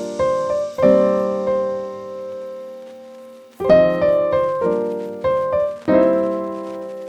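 Background piano music: slow chords struck one after another and left to ring out, with a pause in the middle.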